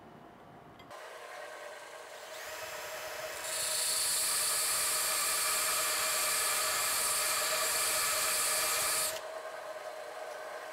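Milling machine running with a steady hum while a 5/8-inch end mill cuts a counterbore; about three and a half seconds in, a loud high-pitched cutting noise sets in, lasts about five seconds and stops sharply, leaving the machine's hum.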